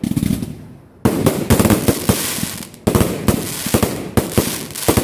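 Fireworks going off. A single bang at the start fades away, then from about a second in comes a dense, rapid run of bangs and crackles from bursting aerial shells, with another loud burst near the three-second mark.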